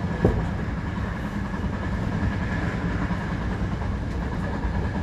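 Running noise of a Hankyu 1000 series electric train at speed, heard from inside the front car: a steady low rumble with a faint steady high tone. An oncoming train passes on the next track at the start, with one brief thump about a quarter second in.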